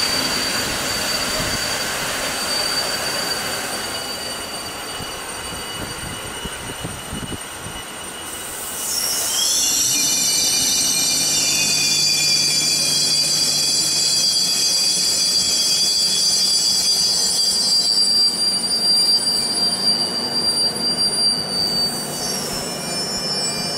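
Passenger train coaches rolling slowly alongside the platform and braking to a stop. A loud squeal of several high pitches sets in about nine seconds in and dies away near the end as the train halts, over a steady low hum.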